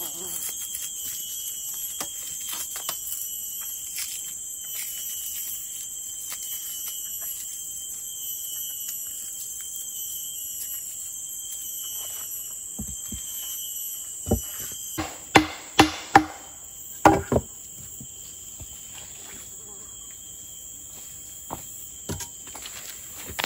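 Insects chirring steadily at a high pitch. About two-thirds of the way through, a run of about six sharp knocks comes over some three seconds.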